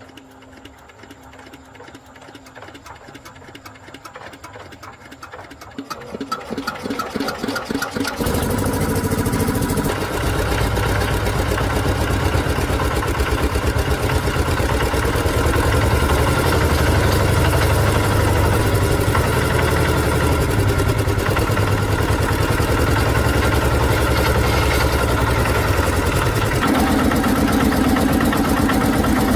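A rice threshing machine's engine cranking and starting. Faint ticking quickens and grows louder over the first several seconds, then the engine catches about eight seconds in and runs steadily and loudly. Its note shifts near the end.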